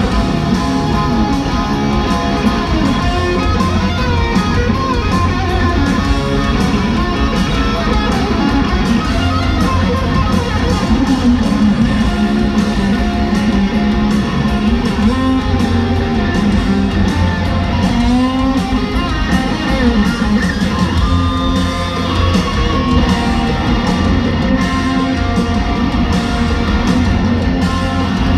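Hard rock band playing live: a lead electric guitar solo with bending notes over bass guitar and drums.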